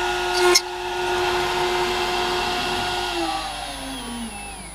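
Fox Alien CNC router spindle running with a steady whine, a short louder burst of cutting about half a second in, then spinning down in falling pitch over the last second and a half as the job ends, with a click near the end.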